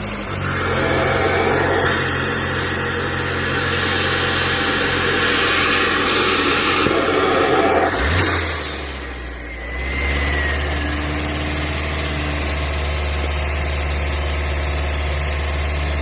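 Ford Escape's 1.6 EcoBoost turbocharged four-cylinder engine running just after start-up, louder for the first half. About eight seconds in it drops back briefly and then settles to a steady idle.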